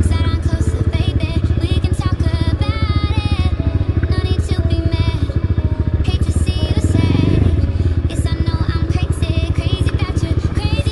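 Single-cylinder dirt bike engine running at low revs with a fast, even pulse while the bike is walked down a slope, under background electronic music.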